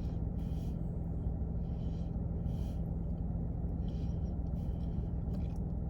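Steady low hum with soft chewing noises recurring about once a second.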